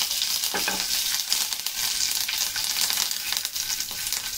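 Mustard seeds, urad dal and curry leaves sizzling and crackling in hot oil in a small nonstick frying pan, a tempering for chutney, with a steady spatter of small pops.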